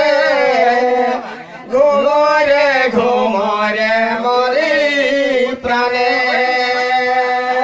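Men singing a slow, chant-like folk song into microphones, holding long drawn-out notes, with a brief break about a second and a half in.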